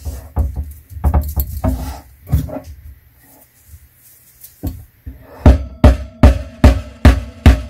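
Steel claw hammer knocking up against a glued-and-nailed particleboard cabinet shelf to free it. A few light knocks come first, then, from about five and a half seconds in, a run of loud, evenly spaced blows, a little over two a second.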